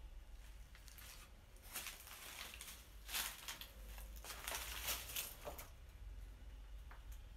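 Footsteps crunching and scuffing over rubble and dry leaves on a concrete bunker floor, in two short spells of crackly rustling, the second longer and louder.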